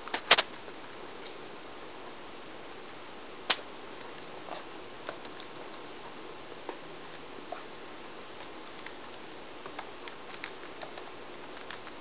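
Laptop keyboard keys being typed by a young child, in irregular clicks: a few hard taps just after the start and one at about three and a half seconds, then lighter taps scattered through the rest, over a steady low hiss.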